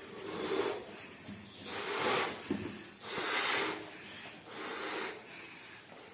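A boy blowing up a latex balloon by mouth: four long puffs of breath pushed into it, roughly one every second and a half, with quieter gaps as he draws breath between them.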